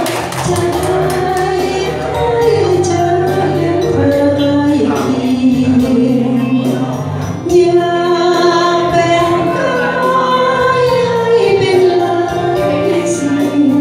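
A woman singing a slow melody with long held notes into a handheld microphone, amplified through a PA, over an instrumental backing.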